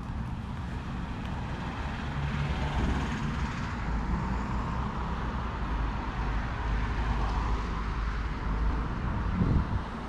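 Road traffic noise from a car on the street: steady tyre and engine noise with a low rumble that builds partway in and drops away near the end.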